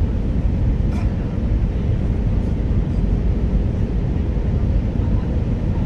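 Steady low rumble of an Airbus A319 airliner's engines and rushing air heard from inside the cabin, with a faint steady hum above it.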